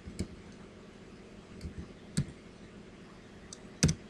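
A handful of separate sharp computer clicks, spaced irregularly, with a quick pair of clicks near the end.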